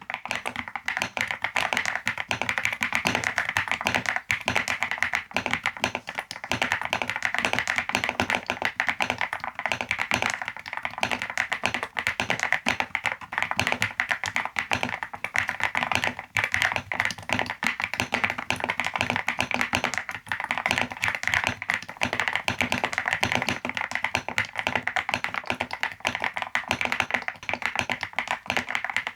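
Continuous fast typing on a Yunzii C98 mechanical keyboard with YUNZII Candy linear switches and its stock MOA-style keycaps: a dense, unbroken patter of key presses that starts abruptly.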